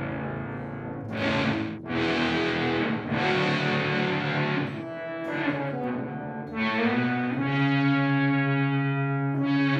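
Fender American Professional II Jazzmaster electric guitar played through the Earthquaker Devices × Death by Audio Time Shadows delay pedal, a series of chords struck about a second apart with a long held chord near the end. The tone is vaguely synthy.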